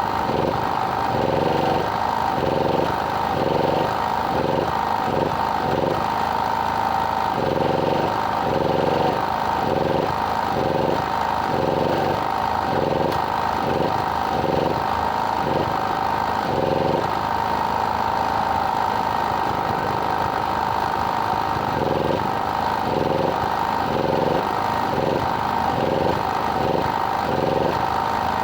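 An engine or motor running steadily, with a constant hum and an uneven pulsing beneath it.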